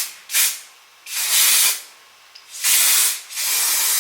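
Spray hissing in separate bursts: two short hisses at the start, then three longer ones of most of a second each, the last running on past the end.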